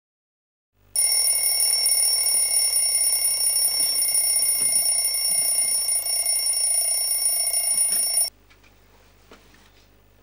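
Bedside alarm clock ringing loudly and steadily, starting about a second in and cut off suddenly about eight seconds in, followed by a few faint handling clicks.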